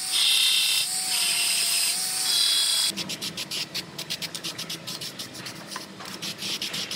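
A small power sander running in short bursts on a steel bed brace, stopping and restarting, prepping the part. About three seconds in it gives way to an aerosol spray can rattling rapidly, about five times a second, as the part is sprayed.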